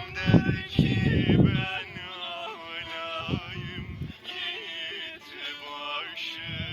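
Music: a man singing long, wavering notes over strummed strings, with the strumming dropping away after about two seconds.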